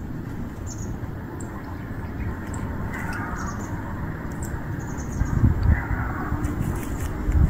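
Birds calling outdoors: a harsh call about three seconds in and another about six seconds in, with small high chirps scattered between, over a low rumble that grows louder in the second half.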